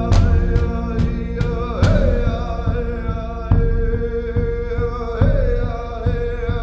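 Song music with a steady beat and long held notes that slide up into pitch.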